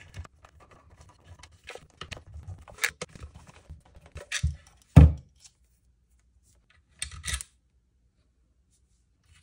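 Hand screwdriver with a hollow T10 Torx bit backing screws out of a DeWalt battery pack's plastic case: scattered small clicks and scrapes, one louder knock about five seconds in, and a short clatter of clicks about seven seconds in.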